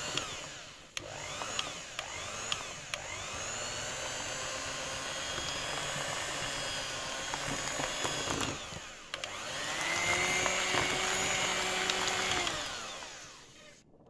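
Electric hand mixer beating flour and cinnamon into cake batter: the motor whine rises and falls in a few short pulses at first, then runs steadily. It dips once about nine seconds in, runs again a little louder, and winds down shortly before the end.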